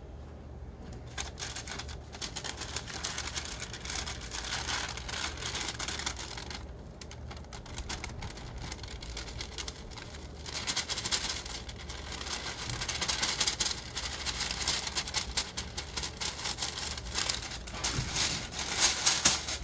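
A sheet of paper rustling and crinkling as it is folded into a chute and handled over a foil tray, with fine black glitter sliding off it back into its jar. The crackle is dense, pauses briefly about seven seconds in, and is loudest near the end.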